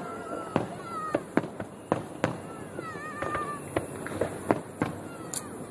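Aerial fireworks bursting in a quick, irregular run of sharp bangs and cracks, about eight in under six seconds.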